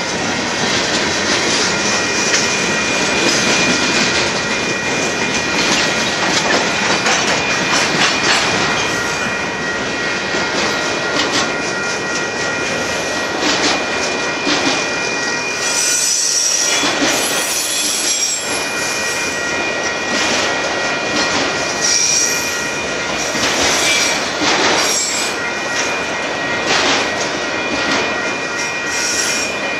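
Freight cars of a Union Pacific mixed freight train rolling steadily past: the rumble and clatter of steel wheels on the rails, with brief wheel squeals about halfway through and again later. Over it runs a steady ringing, typical of the grade-crossing bell.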